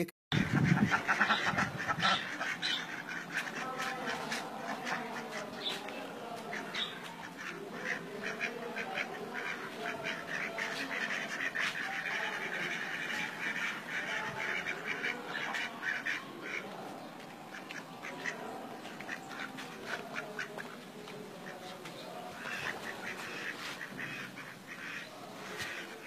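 Domestic ducks quacking in a poultry yard, a dense run of irregular calls, with turkeys among the flock.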